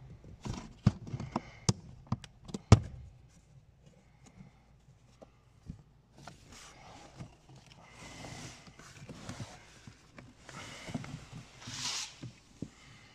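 Plastic clips and cover of a Mini R56's under-glovebox cabin filter housing clicking and clacking as they are released, with a few sharp knocks in the first three seconds. Then the pleated paper cabin filter rustles and scrapes against the housing as it is drawn out.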